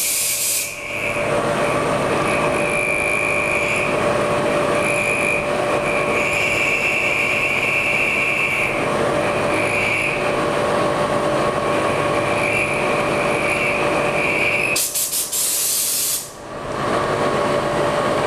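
CNC milling machine's spindle running with a small end mill cutting a white plastic block: a steady machine hum under a high cutting whine that comes and goes as the cutter moves through the part. Two short hissing bursts, at the start and about 15 seconds in.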